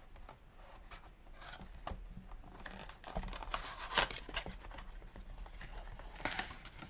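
Thin cardboard box being handled and pulled open by hand, its flaps scraping and tearing, in a run of small clicks and rustles with a sharp crack about four seconds in and a cluster of scrapes near the end.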